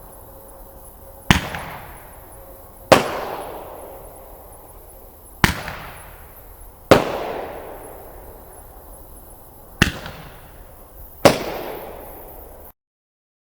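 A firework going off: six loud, sharp bangs at uneven intervals, each trailing off in a fading rumble over about a second.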